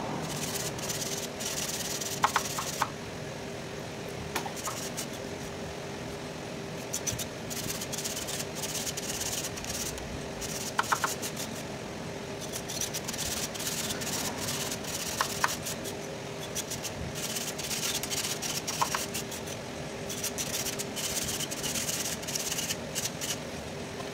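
Thin metal pick scraping and clicking in the tube openings of a truck radiator core as the tubes are cleaned out: irregular scratching with a few sharp, ringing metallic ticks. A steady hum runs underneath.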